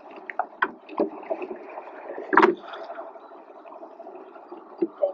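Water splashing and lapping around a rowing boat on the move, with scattered light knocks and clicks and one louder splash or knock about two and a half seconds in.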